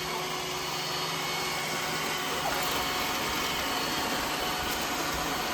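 Roomba robot vacuum cleaners running, a steady whir of suction and brushes.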